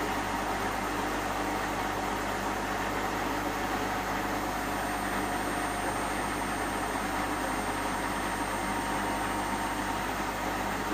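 Hotpoint NSWM 843C washing machine on a 1400 rpm spin with an empty drum, running steadily with a hum and a faint high whine. The owner is unsure whether the drum bearings are starting to go.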